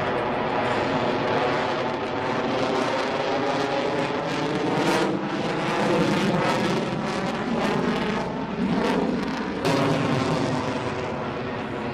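Jet noise from an F-22 Raptor's twin turbofan engines as it flies overhead, continuous and loud, with abrupt shifts about halfway through and near the end.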